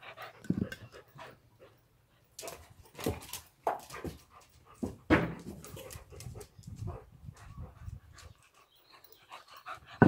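Dogs at play with a rubber ball, panting and making short dog sounds, with several sudden sounds scattered through; the loudest comes about five seconds in.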